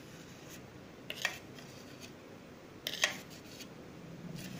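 Three or four light clinks and scrapes of kitchenware as thick mayonnaise is poured out of a mixer jar into a bowl, over a faint room hum.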